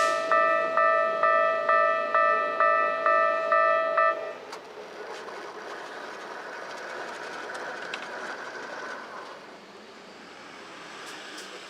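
Japanese level-crossing warning bell dinging about twice a second, each ding a clear ringing tone, then stopping about four seconds in as the crossing clears. A much quieter steady rumble follows.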